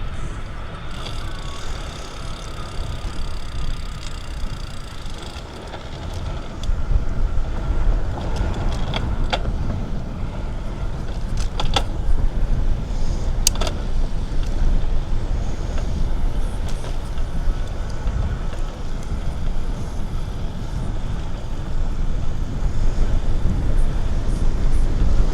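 Wind rumble and tyre noise picked up by a windscreened mic mounted above the front fork of a moving bicycle. The rumble gets louder about six and a half seconds in, and a few sharp clicks come through in the middle.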